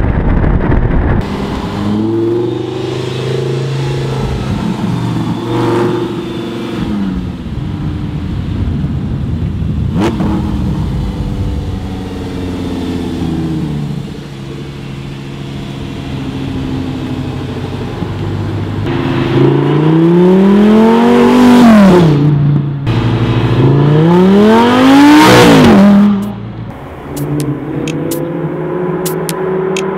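Audi R8 5.2 V10 with a straight-pipe exhaust, running and revving through the gears as the car drives. About two-thirds of the way in come two long hard pulls, each rising steeply in pitch and then dropping off sharply.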